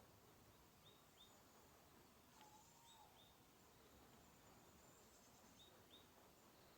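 Faint bird calls: short high chirps in pairs, repeating about every two to three seconds over a quiet outdoor hiss.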